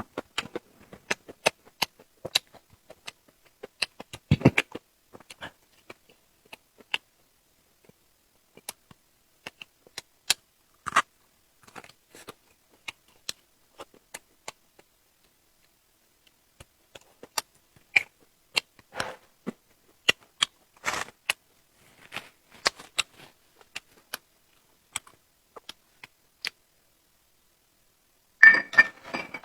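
Close-up eating sounds: irregular wet clicks, smacks and crunches of biting and chewing, with a louder burst about a second before the end.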